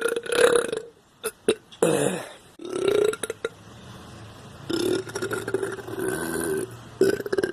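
A man burping on command several times in a row, with a few sharp clicks between the first burps. The longest burp, nearly two seconds long and pitched, starts about five seconds in.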